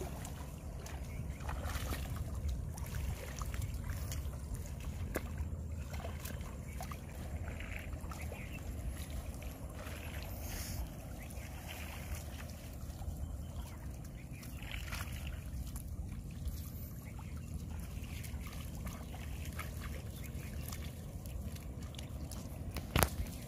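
Shallow river water splashing and sloshing as a fisherman wades at the water's edge and hauls a fine-mesh set net up out of the water, over a steady low rumble. A single sharp tap near the end.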